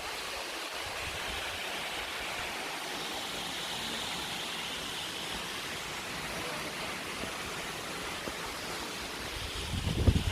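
Purling Brook Falls waterfall: a steady, even rush of falling water. Near the end there is a brief low bump.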